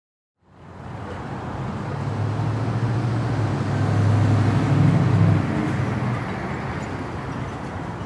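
Grocery store entrance ambience: a steady wash of noise that comes in about half a second in, with a low rumble that builds and then drops away suddenly about five seconds in.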